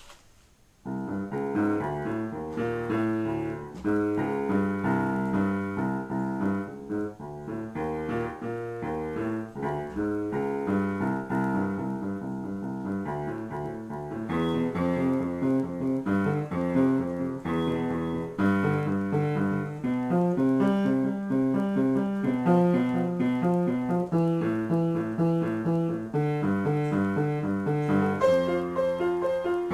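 Solo piano improvisation: chords under a melody line, played at a steady pace, starting about a second in.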